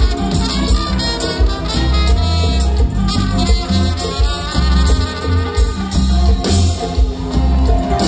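A konpa band playing live, with a trumpet carrying the melody over drums, a heavy pulsing bass line, keyboards and electric guitar.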